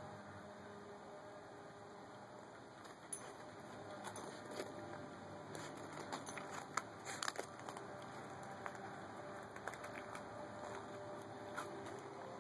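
A faint, steady low hum with a few held tones that come and go: the unexplained noise from the sky, heard under the hiss of distant traffic. Scattered short clicks run through it.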